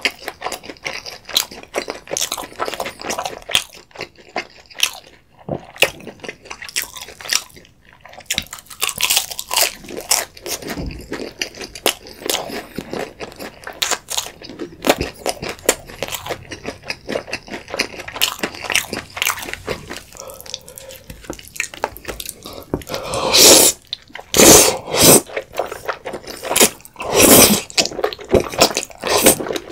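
Close-miked chewing and crunching of crisp thin-crust Domino's pizza, in many quick irregular crunches. Near the end come several louder, longer slurps of thick cream pasta.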